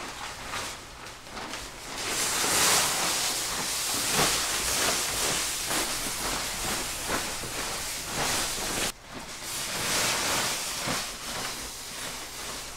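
Nylon shell of an inflatable costume rustling and its blower fan hissing as the wearer walks, the noise breaking off briefly about nine seconds in.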